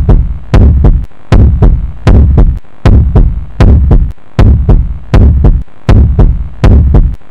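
Loud, steady low thumping pulse, repeating evenly about every three-quarters of a second, each thump opening with a sharp click.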